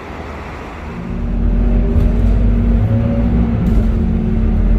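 Roadside traffic noise for about a second, then a Scania K230UB bus's diesel engine running, heard from inside the passenger cabin as a loud, steady low drone with a hum.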